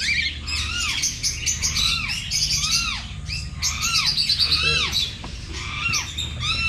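Birds chirping: many quick, overlapping calls that rise and fall in pitch, repeated over and over.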